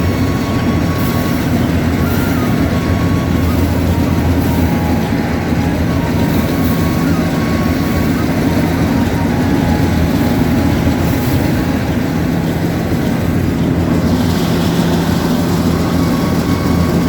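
Yanmar AW70V combine harvester's diesel engine running steadily with a constant low hum.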